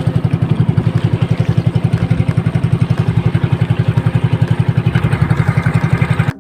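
Small fishing-boat engine running steadily, with an even, rapid pulse.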